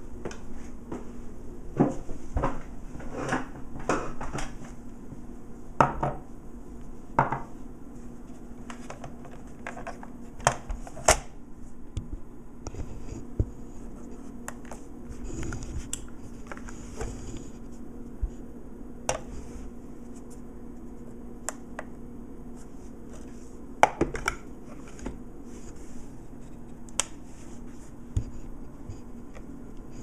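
Irregular clinks and knocks as coffee gear is handled, about a dozen spread through, over a steady low hum.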